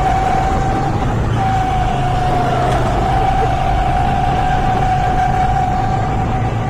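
Rental go-kart's small gas engine running steadily under way: a low drone under a steady high whine that barely changes pitch.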